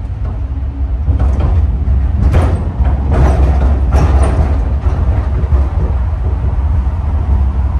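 Automated airport people-mover train running along its guideway, heard from inside the car: a steady low rumble, with a louder rush of noise about two to four seconds in.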